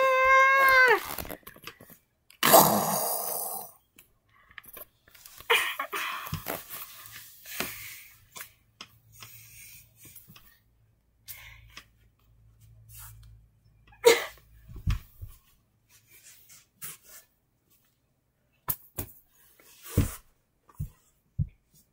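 A child's long wailing voice held on one pitch, dropping away about a second in, then a short breathy burst, followed by scattered soft knocks and rustles of plush toys and plastic bricks being handled.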